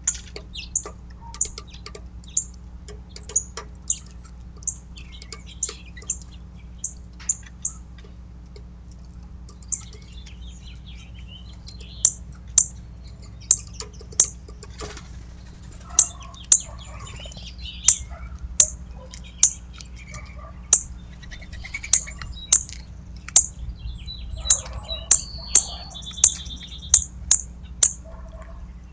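Backyard songbirds calling at a feeder: a run of short, sharp, high chip notes, roughly one a second, thinning out for a few seconds partway through and coming thicker later, with a brief rapid trill near the end.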